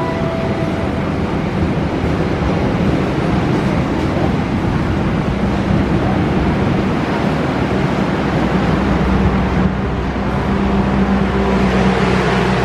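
Passenger train in motion: a steady rumble and rush of wheels on the rails. A low steady hum grows stronger about two-thirds of the way through.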